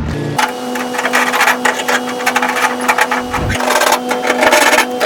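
Cargo straps being released from a flatbed trailer: rapid mechanical clattering and rattling of the strap and winch hardware over a steady hum.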